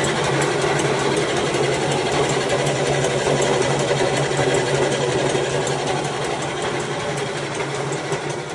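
Atta chakki (flour mill) running: a loud, steady mechanical drone with a constant low hum.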